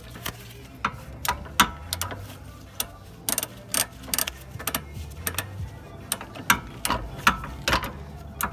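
Flex-head ratchet clicking in short, uneven runs as a bolt behind the brake caliper is tightened by hand. There is so little room to swing the handle that it advances only about one tooth at a time.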